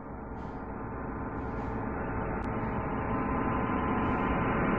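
A swelling, gong-like metallic drone, an eerie horror sound effect, growing steadily louder throughout.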